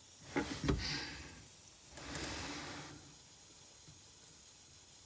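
A person breathing heavily twice, each breath about a second long, with two small clicks near the start of the first.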